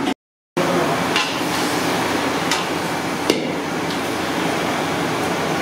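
A metal ladle knocking and scraping against an iron kadai of mutton a few times, over a steady rushing noise of the fire and cooking food; the sound drops out briefly just after the start.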